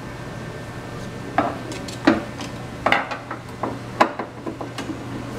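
Screwdriver clicking and scraping against the plastic underside of a keyboard case as screws are worked loose: a string of short, sharp clicks and taps, spaced irregularly, over a steady low hum.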